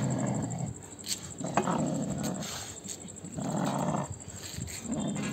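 Dogs growling in bouts of about a second with short pauses between them as they wrestle.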